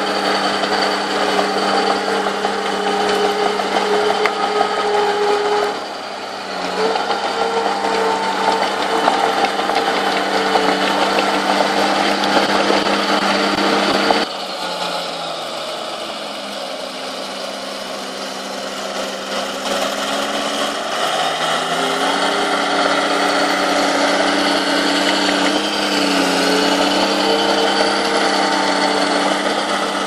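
Small crawler bulldozer's diesel engine running steadily while pushing soil. About fourteen seconds in it drops suddenly in loudness and its pitch sinks, then climbs back up some seven seconds later.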